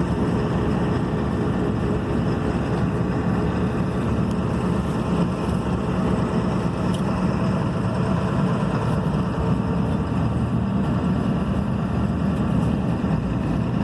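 Steady road and engine noise heard inside a moving pickup truck's cab, a low even rumble with a faint hum.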